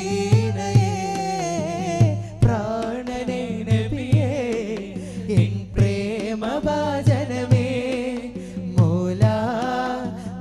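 Male voices singing a Malayalam Islamic devotional madh song, the melody bending and ornamented, over a steady low drum beat about twice a second.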